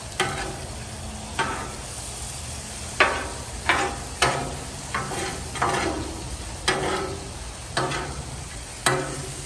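Metal spatula and scraper striking and scraping across a flat-top griddle, about ten irregular strokes, over the steady sizzle of steak frying on the hot steel.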